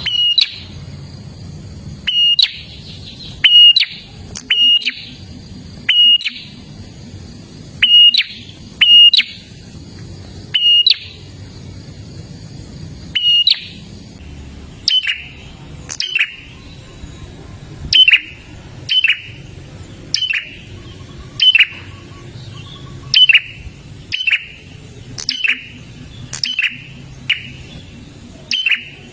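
Prinia (prenjak) calling: short, loud notes that fall steeply in pitch, repeated about once a second and often in pairs, over a low steady hum.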